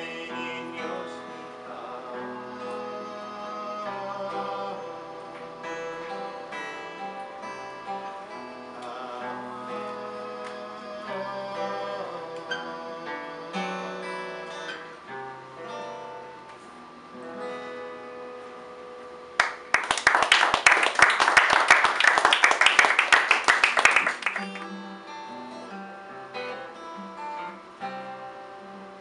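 Acoustic guitar played solo, an instrumental passage of picked notes. About twenty seconds in it breaks into roughly four seconds of loud, fast strumming, then goes back to picking.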